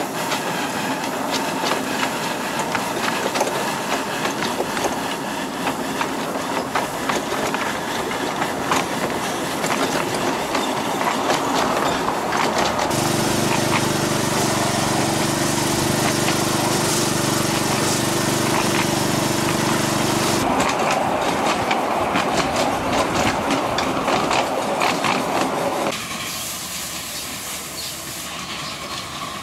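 Miniature live-steam locomotive on 7¼-inch gauge track running along, with a steady clatter of wheels over the rails. For several seconds in the middle a steady low drone joins in, and the sound drops quieter near the end.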